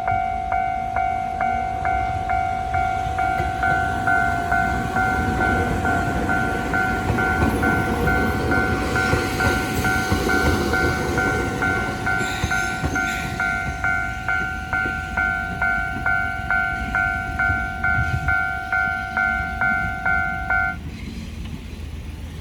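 A level-crossing warning bell clangs at about two to three strikes a second, then stops suddenly near the end. Under it an 800 series electric train pulls out of the station, its running noise loudest in the middle.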